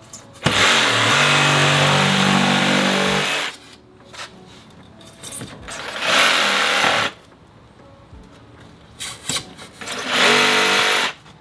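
Cordless jigsaw with a fine-toothed metal-cutting blade sawing through XPS foam board. It runs three times: a long cut of about three seconds, then two shorter runs of about a second each.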